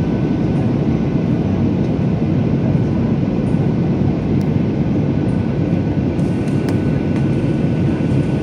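Boeing 737-800 cabin noise heard from a window seat over the wing: a steady rumble of the CFM56-7B engine and airflow during the descent on approach, with a faint steady whine.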